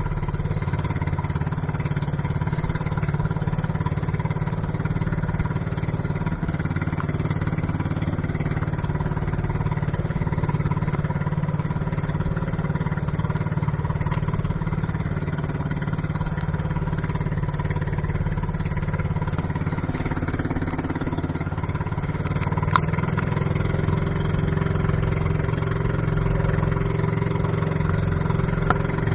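Small boat's engine running steadily at cruising speed.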